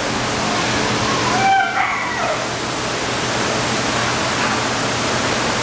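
Dogs in kennel runs, one giving a short whine about a second and a half in, over a steady rushing noise.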